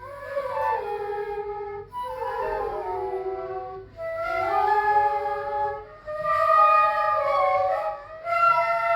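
Bansuri bamboo flute playing a melody in short phrases of stepping, ornamented notes, with a brief break between phrases about every two seconds.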